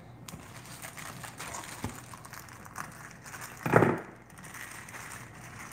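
Thin plastic produce sleeve crinkling and rustling as a bunch of scallions is handled, with one louder, brief rustle near the fourth second.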